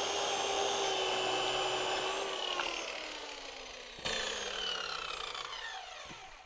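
Corded circular saw finishing a rip through a cedar board, the motor whining steadily under the cutting noise. About two and a half seconds in the trigger is released and the blade spins down with a slowly falling whine, and a single knock sounds about four seconds in.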